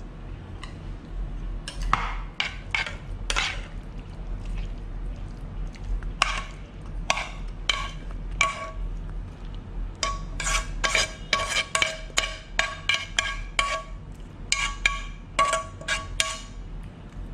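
Metal spoon knocking and scraping against a wok as stir-fried topping is spooned out onto a plate: sharp clinks, each with a short metallic ring. They come a few at a time at first, then several a second for the last several seconds.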